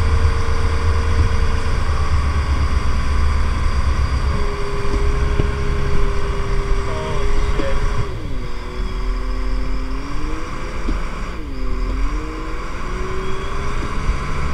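Motorboat engine running under way while towing a parasail, a steady low rumble with a held engine note. The note dips in pitch and recovers twice, about eight and eleven seconds in.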